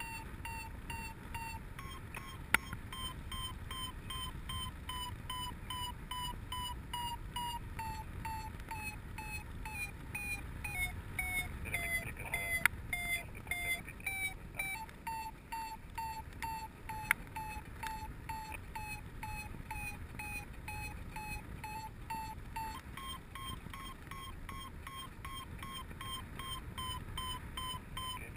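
Paragliding variometer beeping steadily, about two to three beeps a second. The pitch sinks for a few seconds in the middle and then rises again, following the rate of climb in lift. Wind noise runs underneath.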